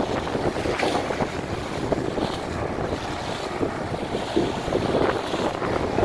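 Wind buffeting the microphone as a steady, rough rushing noise, with the sea and the ship's own noise beneath it.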